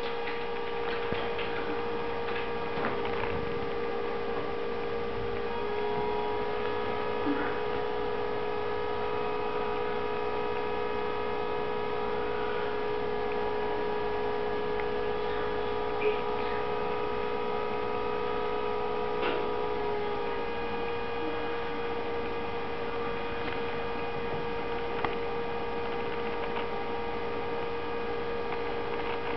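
A steady electrical hum with a whining tone that shifts slightly twice. A few faint, short clicks are scattered through it.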